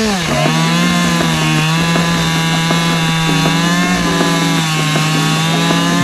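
Two-stroke Husqvarna chainsaw coming off a rev right at the start, then held at a steady high speed while cutting into a block of wood.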